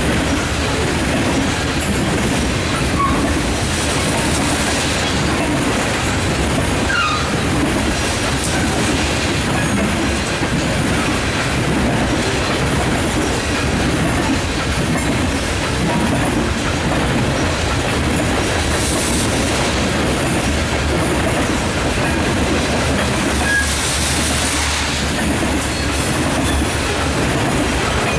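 Loaded coal hopper cars rolling past close by: a steady, loud noise of steel wheels on rail, with a few faint short wheel squeals.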